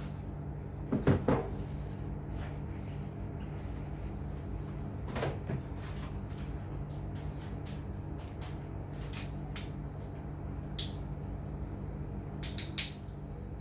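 A few sharp knocks and clunks, loudest about a second in and near the end, with scattered faint ticks between, like parts and tools being handled, over a steady low hum.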